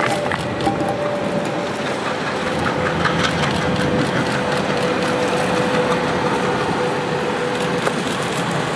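Freight train passing, its locomotives giving a steady engine tone that sinks slightly in pitch over a continuous rumble of rolling wagons, with faint clicks from wheels on the track.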